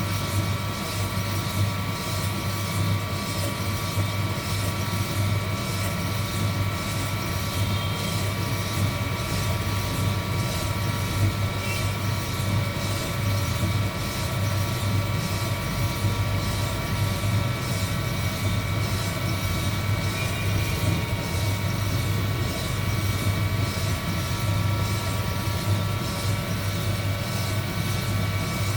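Heat gun running steadily over a batch of roasting coffee beans: a constant blowing hum with several faint high steady tones above it.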